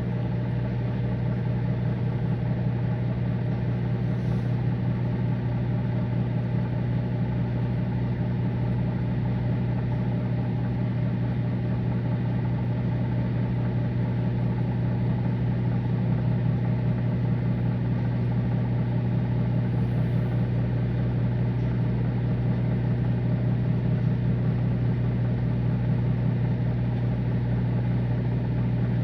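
Microwave oven running with a steady low hum, a batch of Gushers candies melting inside.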